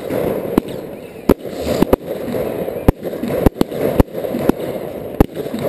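Fireworks launching and bursting close by: about ten sharp bangs at irregular intervals over a continuous rushing hiss of rising shells.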